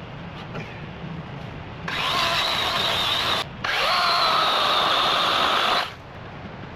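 DeWalt 20 V cordless electric chainsaw with a 16-inch bar, cutting a fallen log. It runs in two steady whining bursts, about a second and a half and then about two seconds, with a brief stop between them. Its pitch rises as the second burst spins up.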